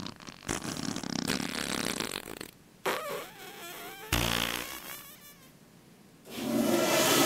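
A loud, low fart of about half a second, a little over four seconds in. Near the end a steady rushing noise starts.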